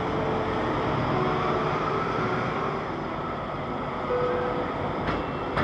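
Steady mechanical rumble with a dense hiss, from a large passenger ferry's engines and machinery at the quay, with brief faint tones coming and going and a sharp click near the end.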